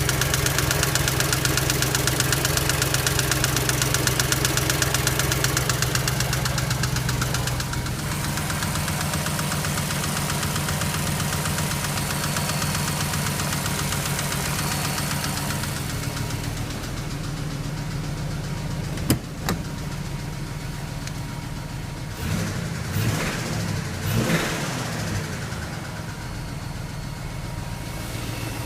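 BMW X5 engine running with a steady rhythmic knock from the engine, whose cause is not known. There is a sharp click about two-thirds of the way through, and a few brief swells in engine sound soon after.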